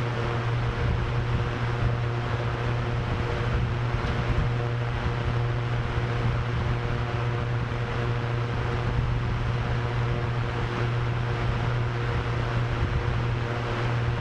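Drone propellers spinning steadily, a constant low hum with a few higher steady tones, mixed with a continuous rush of wind.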